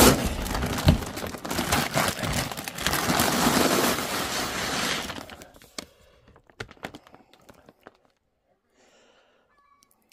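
Plastic sack crinkling and rustling as it is handled, loud for about five seconds, then dying down to a few scattered clicks and knocks.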